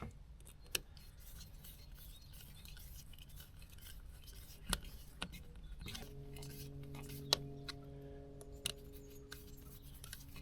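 Quiet handling of small hand tools and electrical fittings, with a few sharp clicks. A low steady hum runs from about six seconds in to near the end.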